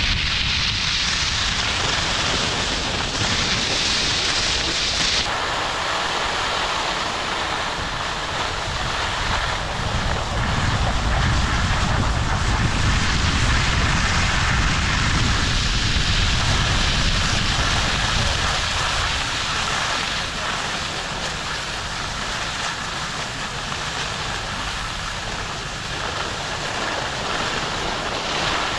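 Wind buffeting the microphone while skiing down a slope, a heavy low rumble over the steady hiss of skis sliding on snow. The hiss shifts abruptly about five seconds in.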